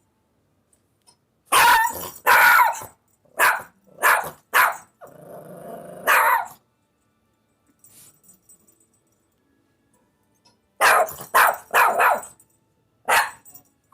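Dog barking in loud, sharp bursts, set off by the doorbell, with a low growl about five seconds in. After a pause of about four seconds comes another quick run of barks.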